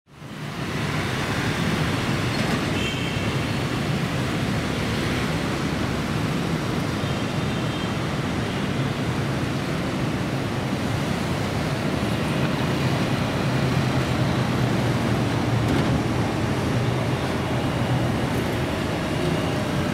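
Steady road traffic: engines and tyres passing in a continuous rumble, fading in at the start. Two short high-pitched sounds stand out faintly about three and seven seconds in.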